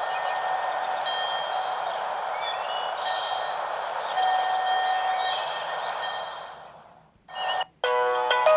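Samsung Galaxy GT-S7562L ringtone: scattered high chime-like tones over a steady hiss, fading out about six and a half seconds in. After a short gap, the next ringtone, a bright melody, starts near the end.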